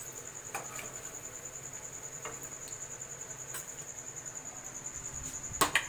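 A high, steady, rapidly pulsing insect trill. A few light clicks of a metal slotted spoon against the pan, and a louder metal clatter near the end.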